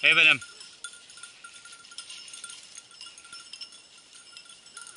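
A short loud call at the very start, then the faint, intermittent tinkling of a hunting dog's collar bell as the setter works through the undergrowth.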